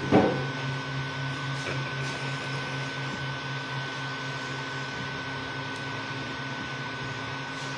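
Creality Ender 3 V2 3D printer running mid-print, its motors and fans giving a steady hum with a thin high tone over it. A single short knock sounds just after the start.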